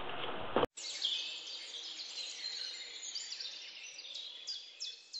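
Birds chirping: many short, high, quickly falling chirps over a faint hiss, following a brief stretch of room noise that ends in a click and a sudden cut.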